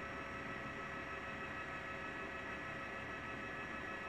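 Steady hum and hiss with several constant high tones; no firework bangs can be heard.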